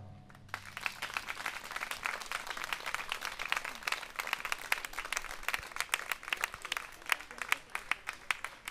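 Audience applause: many scattered hand claps, starting about half a second in and thinning out near the end.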